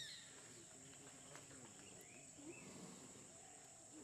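Near silence: a faint, steady high-pitched insect drone, with a couple of short faint chirps about two seconds in.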